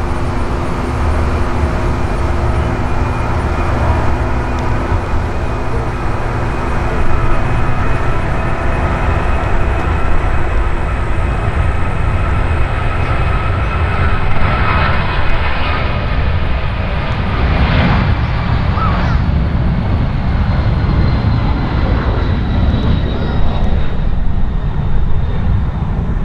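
Boeing 767-200 freighter's twin turbofan engines at takeoff power: a loud, deep, steady rumble with several high whining tones held over it, as the jet rolls down the runway and climbs out.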